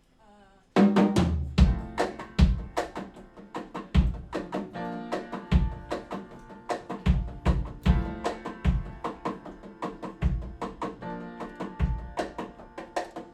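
A live band kicks in about a second in and plays an instrumental intro: a drum kit with bass drum and snare strikes under sustained pitched chords.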